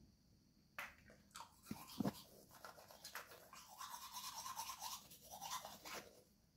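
A few light knocks, the loudest about two seconds in, then about three seconds of fast repeated scrubbing strokes that stop shortly before the end.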